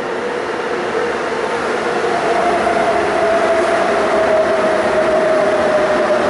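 MTR Tung Chung Line A-Train electric multiple unit pulling into a station platform. It grows louder as it arrives and runs past, with a steady whine that sinks slightly in pitch as the train slows.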